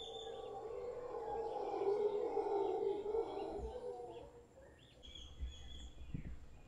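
Mantled howler monkey howling, a low rough roar that swells over the first two seconds and dies away about four and a half seconds in. Birds chirp and whistle higher up throughout.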